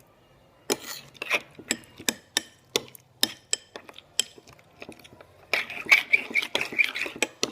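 A utensil clicking and scraping against a container while slime is mixed: scattered sharp taps at first, then a faster run of clinking strokes from about halfway through.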